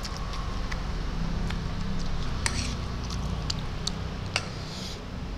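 A person eating instant noodles with a fork: wet chewing and slurping with scattered small clicks and smacks, and two short slurps, one about halfway and one near the end. A steady low hum sits underneath.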